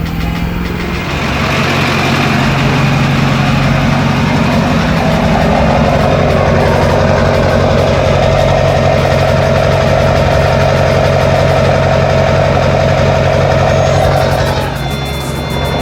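LB7 Duramax 6.6-litre V8 turbodiesel pickup on the road, its engine running steadily under load. The sound grows louder about a second in and eases off near the end.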